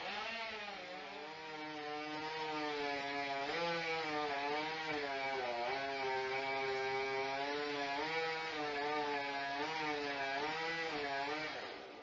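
Chainsaw running at high revs, its engine pitch wavering up and down the whole time, rising as it starts and dying away just before the end.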